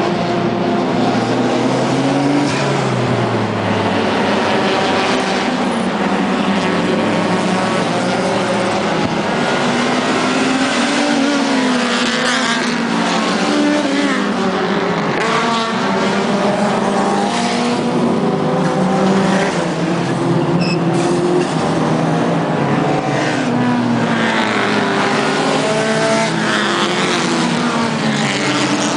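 Several racing cars' engines at high revs at once, Nissan S13 and R32 Skyline among them, their pitches climbing and dropping with throttle and gear changes as they lap the circuit. It runs without a break.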